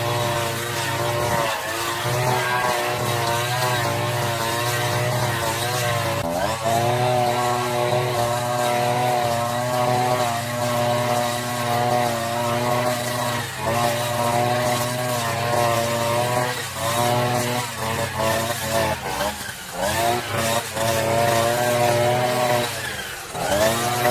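Brush cutter engine running throughout, its pitch dipping and rising again several times.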